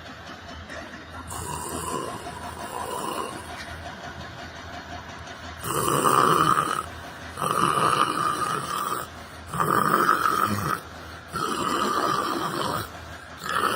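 A person snoring: a regular run of loud snores, one about every two seconds, starting about halfway in after a quieter stretch.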